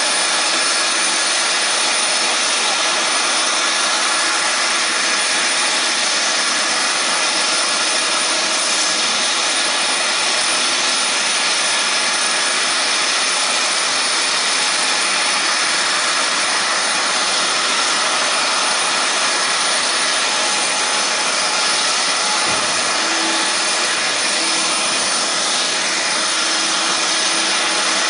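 The four General Electric F138 turbofan engines of a Lockheed C-5M Super Galaxy running at a steady, unchanging power: a loud, even rush with a high whine.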